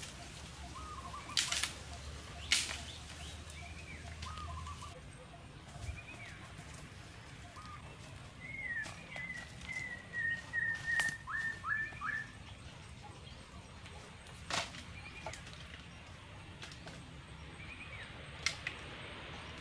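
A forest bird calling with short whistled notes, with a quick run of chirps from about eight to twelve seconds in. A few sharp cracks of wood as sticks and bamboo poles are handled.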